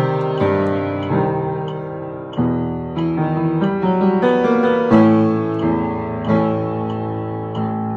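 Piano playing the secondo part of a four-hand piano duet at a steady tempo of about 92 beats a minute, with a run of struck notes and chords.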